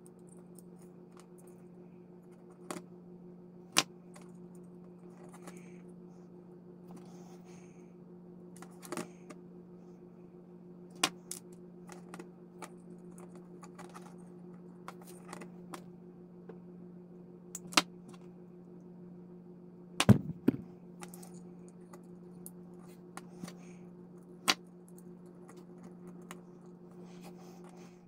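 Scattered sharp clicks and taps of needle-nose pliers, wire and a plastic model engine being handled on a workbench, the loudest a quick cluster about twenty seconds in, over a steady low hum.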